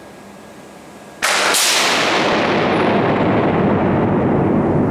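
Short-circuit fault current through a trefoil bundle of power cables held by cable cleats. A sudden loud bang a little over a second in, a second bang a moment later, then a loud continuing noise whose hiss fades while a low rumble carries on. These are the violent electromagnetic forces of the fault jolting the cables against their clamps.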